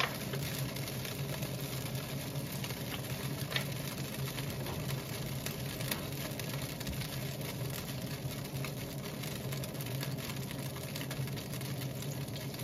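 Steady low mechanical hum under a faint hiss, with a few small crackles from hot oil in a wok.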